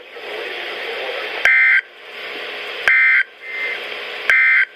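NOAA Weather Radio end-of-message SAME data bursts, marking the end of the alert. Three short, loud digital squawks about a second and a half apart sound over radio static.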